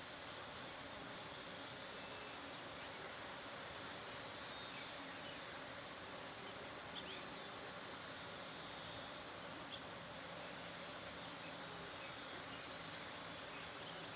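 Bees buzzing steadily over a constant outdoor background hiss, with a couple of faint, short bird chirps about halfway through.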